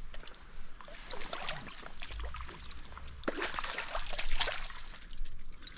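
Stream water splashing and sloshing in irregular bursts, with scattered small clicks and knocks; loudest a little past the middle.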